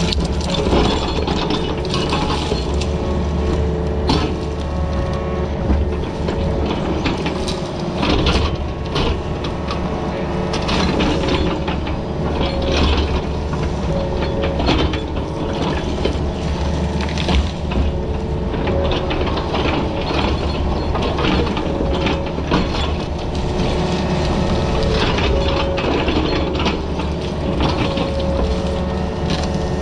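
Excavator working in rocky ground: its diesel engine running steadily with a hydraulic whine, over irregular clanks and scrapes of the bucket against rock, heard from inside the cab.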